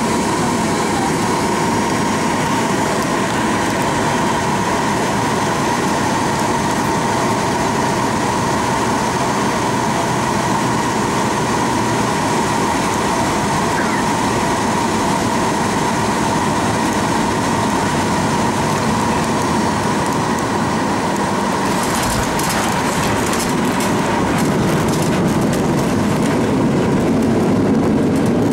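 Cabin noise of a Boeing 737-800 on final approach, its CFM56-7B engines running steadily with a held whine. About three-quarters of the way through comes the touchdown, then a rougher rumble as the wheels roll on the runway. Near the end the noise grows louder as the jet decelerates.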